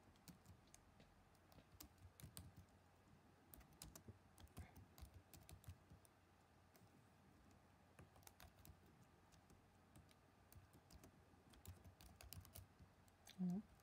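Faint typing on a laptop keyboard, keystrokes clicking in several short runs with pauses between. Near the end comes one brief hum of a voice.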